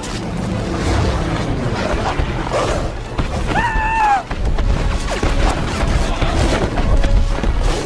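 Film battle soundtrack: score mixed with booms, crashes and the din of a mass melee. A short high cry that rises and falls comes about three and a half seconds in.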